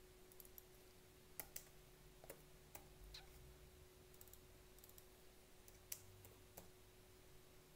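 Faint, irregular clicks of a computer keyboard and mouse as numbers are typed in, about half a dozen spread over a few seconds, over a faint steady hum.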